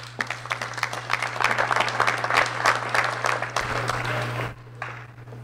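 An audience applauding, many hands clapping, which fades away about four and a half seconds in.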